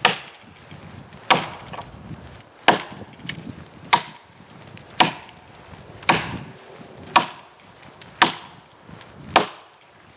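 Axe chopping into a thick oak log, nine steady strikes about a second apart, each a sharp knock of the blade biting into the wood as the V-notch cheeks are cut out.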